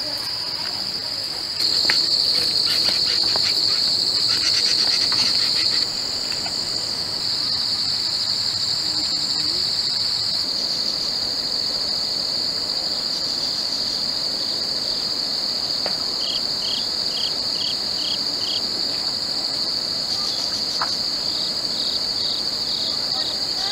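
A steady, high-pitched chorus of shrilling insects, louder for a few seconds near the start. About two-thirds of the way in, a run of about six short, lower chirps comes through it, and another run follows near the end.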